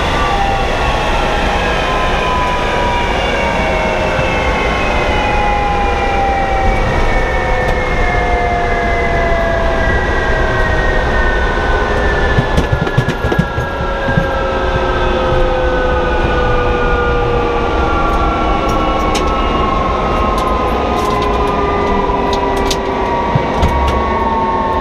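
General Electric J79 turbojet of a jet-powered semi truck winding down after a run: a loud steady rush with several whining tones slowly falling in pitch, and a few faint ticks in the second half.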